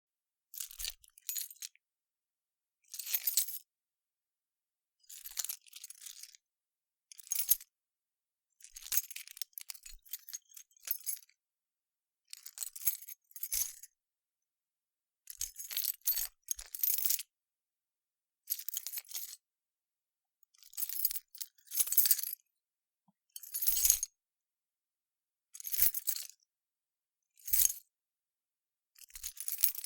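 A bunch of metal keys jingled in a hand, in about fourteen short separate shakes with silent gaps between them, some single quick rattles and some longer jingles.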